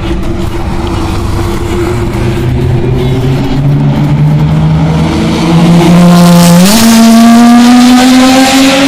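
Race car engine accelerating on the circuit, its note rising steadily and growing louder, with a sudden step up in pitch about two-thirds of the way through; loudest near the end.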